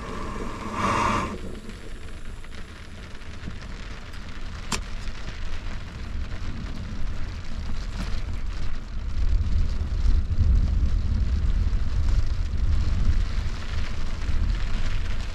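Rain falling on a truck camper shell: a steady low rumbling noise that swells in the second half, with one sharp click about five seconds in.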